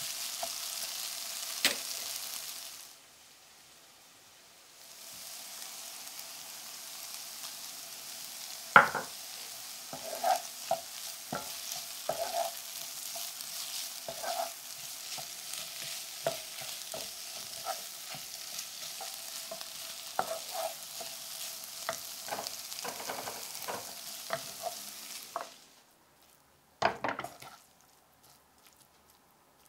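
Diced butternut squash and onion sizzling in a nonstick frying pan, with a wooden spatula scraping and tapping against the pan as it is stirred. The sizzle drops away for about two seconds near the start, stops near the end, and is followed by a short clatter.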